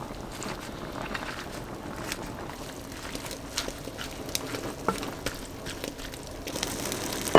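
A wooden spatula stirring and folding fresh spinach leaves into a stew in a cast-iron pot: scattered soft scrapes and leaf rustles over a steady background hiss.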